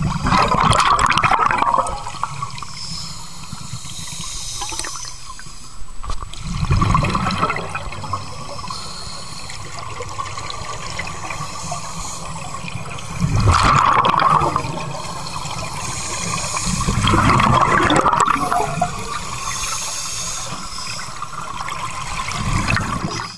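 Scuba regulator exhaust heard underwater: a diver breathing out, in four rushes of bubbles several seconds apart over a steady underwater hiss.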